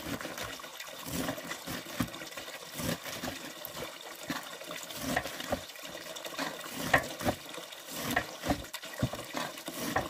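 Water running steadily from a pipe into a metal basin, with the irregular chopping knocks of a large knife cutting green onions on an aluminium tray.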